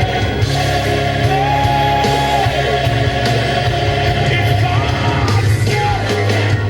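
Singing with band accompaniment, a voice holding long sustained notes over a steady bass line.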